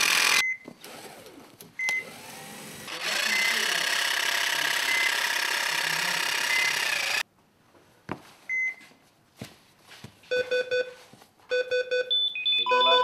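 Handheld power saw running steadily as it cuts through a duct-taped fabric sleeve, stopping abruptly about seven seconds in. Near the end, a rhythmic electronic beeping on several pitches begins, like an alarm clock.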